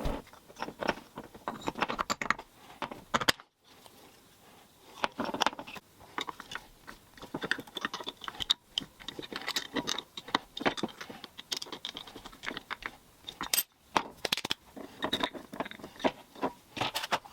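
Small metal parts being handled: irregular clinks, clicks and scrapes, broken by two short silent gaps, about a third of the way in and again near the end.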